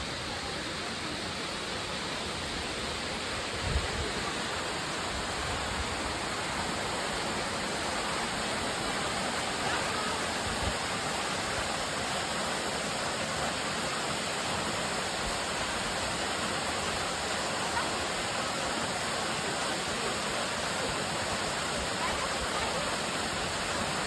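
Waterfall pouring into a pool, a steady rush of water.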